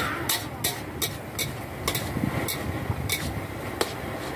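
Metal spatula clinking and scraping against a steel wok as minced chicken is stir-fried, in irregular sharp strokes about two or three a second, over a steady low hum.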